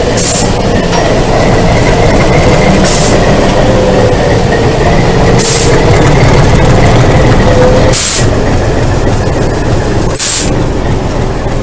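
Alco RS-8 diesel locomotive running at close range with a loud, steady engine drone and a faint whine. A short, high squeak-like hiss repeats about every two and a half seconds.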